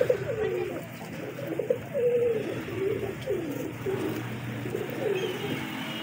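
Domestic pigeons cooing: a steady string of low, swooping coos, one after another about every half second.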